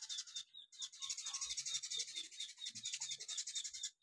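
Spaghetti being sucked in and chewed: soft, irregular wet mouth and chewing sounds, over a steady high-pitched background noise that pulses several times a second.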